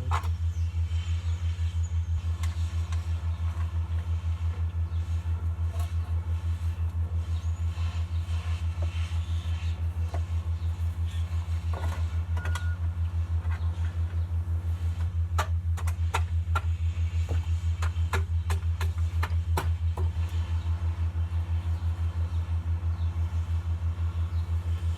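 A steady low machine hum with a fast, even pulse, and a run of light clicks and taps about two-thirds of the way in.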